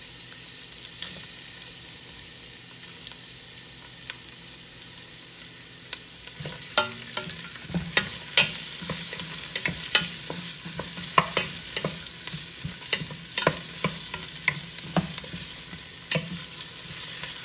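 Onion and garlic sizzling in olive oil in a stainless steel pot. About six seconds in the sizzle gets louder and a wooden spoon starts stirring, scraping and knocking against the pot many times.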